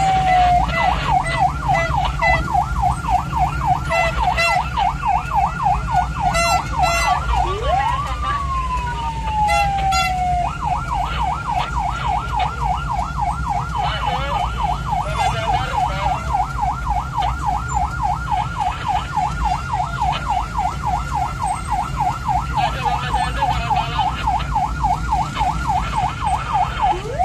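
Ambulance's electronic siren running in a fast yelp, sweeping up and down several times a second. About 8 seconds in it changes briefly to a slow falling wail, then goes back to the yelp. The vehicle's engine and road rumble sit low underneath.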